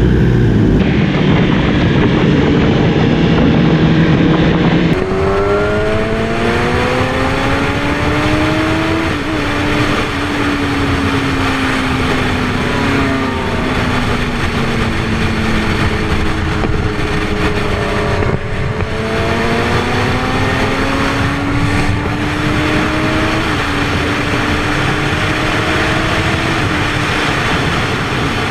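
Sport motorcycle engine, a Yamaha R1, under way with wind rushing past. It holds a steady note at first. From about five seconds in, the pitch climbs and drops back at each gear change, and in the middle it sinks slowly as the bike eases off.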